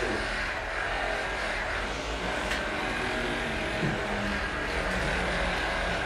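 Two handheld percussion massage guns running, their motors buzzing steadily while pressed into a person's lower back and hips.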